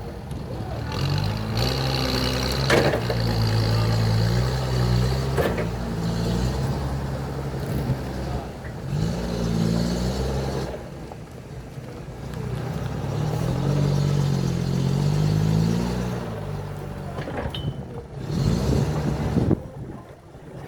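A heavy machine's engine running and changing speed, going up and down in pitch, with a few sharp knocks.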